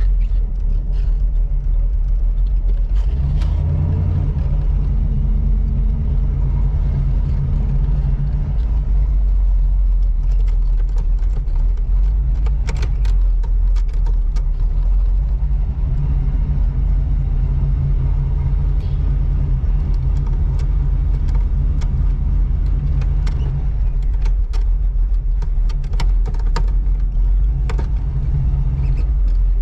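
1985 Oldsmobile Cutlass Supreme with headers driving: its engine runs with a steady low drone, picking up briefly about three seconds in. Scattered clicks and rattles come through over the engine.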